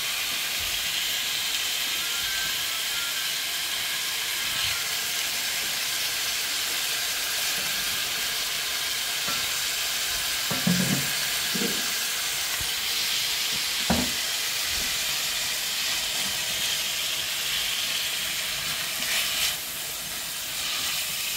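Chopped onions and red peppers sizzling steadily in hot oil in a pot as they soften with salt. There are a few short dull thuds around the middle, and a spatula stirs through the vegetables near the end.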